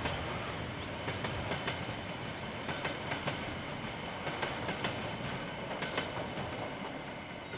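Freight train wagons rolling past on the rails, with irregular clicks of the wheels over the rail joints; the sound begins to fade near the end as the train moves away.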